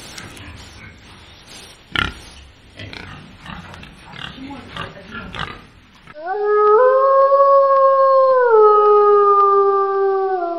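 Wild boars grunting for about six seconds, in short uneven calls. Then a gray wolf gives one long, loud howl: it rises in pitch, holds, then steps down twice as it fades out.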